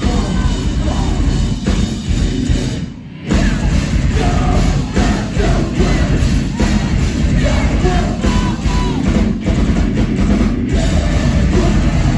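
Metalcore band playing live at full volume: distorted guitars, bass and pounding drums with vocals over the top. The band stops for a moment about three seconds in, then comes straight back in.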